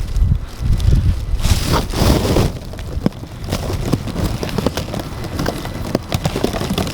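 Footsteps crunching through snow, a quick run of short crackling crunches. Wind buffets the microphone with a low rumble for the first couple of seconds.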